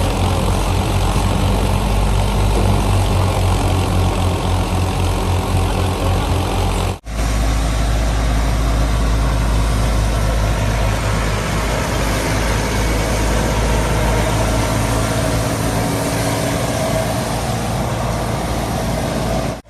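Fiat 480 tractor's diesel engine running steadily under load, driving a wheat thresher, with a fast even beat. The sound cuts out for an instant about seven seconds in.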